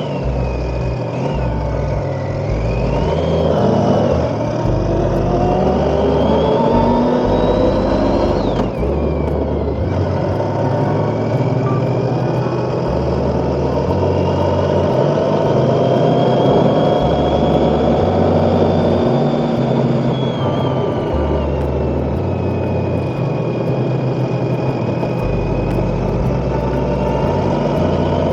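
Motorcycle engine heard from on board while riding, its pitch climbing under acceleration and dropping sharply at gear changes about nine seconds and twenty seconds in, then climbing again.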